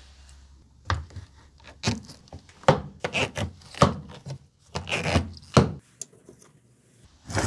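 Metal toggle clamps snapped down and a knife blade handled in a wooden jig: about a dozen sharp, irregular clacks and knocks, some with a short metallic ring, starting about a second in and stopping near the end.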